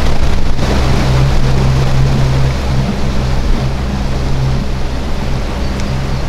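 Boat outboard motor running steadily with the boat underway, a low even hum mixed with water rushing against the hull and wind noise.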